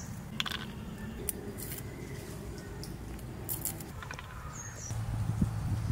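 Garlic cloves being peeled by hand: dry papery skins crackling and rustling, with scattered light clicks. A short high chirp comes in about four and a half seconds in, and a low steady engine drone starts near the end.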